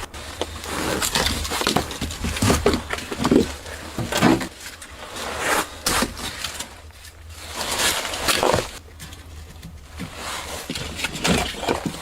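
Irregular knocks, scrapes and rustles of leftover pieces of firewood being handled at an old wood stove.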